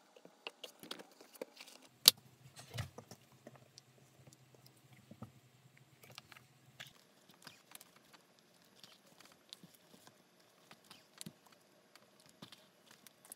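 Quiet leatherworking sounds: a stitching chisel in a press punching through leather into a poly board, with a sharp click about two seconds in and a low hum for a few seconds, then faint ticks and rustles of hand-stitching leather with needle and thread.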